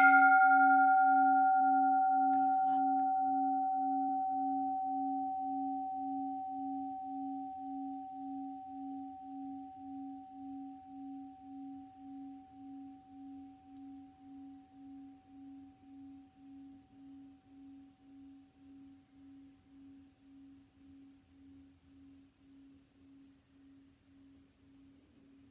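Large singing bowl struck once with a padded mallet, ringing out in a long, slowly fading tone. The higher overtones die away within a few seconds. A low tone keeps pulsing about twice a second as the ring fades almost to nothing.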